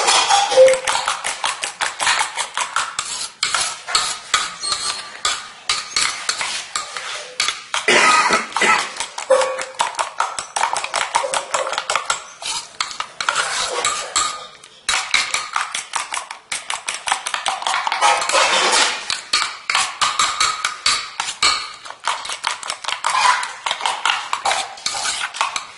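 Steel spoon beating eggs in a stainless steel bowl: rapid, continuous clinking of the spoon against the bowl, with a brief pause about fifteen seconds in.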